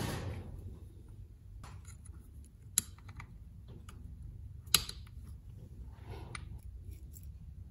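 Small metal carburetor parts handled and worked by hand: light rustling and clicking of the Quadrajet's choke pull-off linkage and levers, with two sharper clicks about three and five seconds in.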